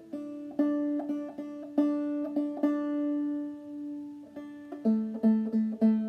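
Banjo played clawhammer style in double D tuning (aDADE), picked out note by note. One note is left ringing for about two seconds in the middle, then a run of quicker, lower notes follows.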